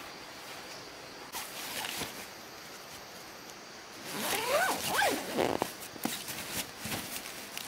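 The zipper of a fabric tent carry bag being pulled shut in a few quick strokes about halfway through, with the fabric rustling before it.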